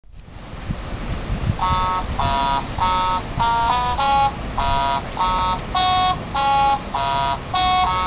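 Baby Einstein Press and Play Pal bird plush toy playing an electronic tune from its sound chip: about a dozen short chiming chords, evenly spaced at roughly one and a half a second, beginning after a few low knocks a little over a second in.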